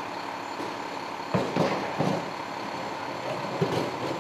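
Garbage truck's diesel engine idling steadily, with several loud knocks and clanks from about a second and a half in and again near the end.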